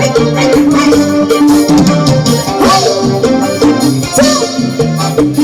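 Background music with melody, held notes and a percussion beat.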